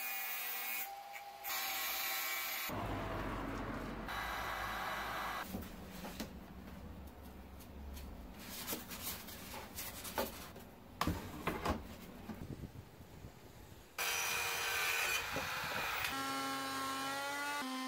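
A run of cutting sounds that change abruptly: a cordless angle grinder whining as it cuts a plastic sheet, scraping and rubbing with sharp knocks of hand work on a wooden board, then a circular saw's motor whine as it cuts a wooden board near the end.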